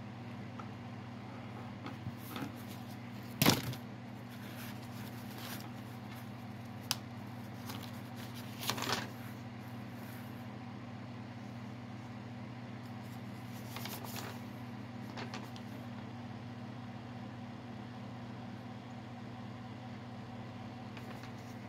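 Paper pages rustling as they are handled and turned, with a sharp knock about three and a half seconds in, over a steady low hum.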